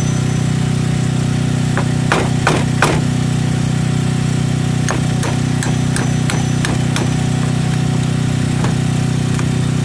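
Hammer striking while a notch is cut into a wooden post with hand tools: scattered blows, the three loudest about two to three seconds in. A steady engine hum runs underneath.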